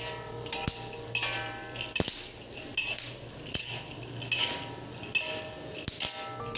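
Metal spatula scraping and stirring peanuts around a dry wok, a rhythmic scrape a little faster than once a second with the nuts rattling against the steel. The nuts are being dry-roasted without oil, so there is no sizzle.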